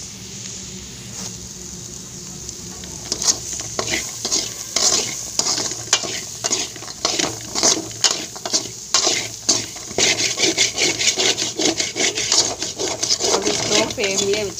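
A spoon stirring and scraping boiled legumes around a metal kadai over a low sizzle. The scraping strokes start about three seconds in, several a second, and grow busier near the end.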